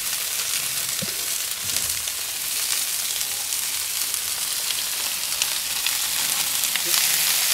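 Meat sizzling on a gas barbecue's grill and hot plate: a steady hiss with small pops. It grows louder near the end as seasoned potato slices go onto the hot plate.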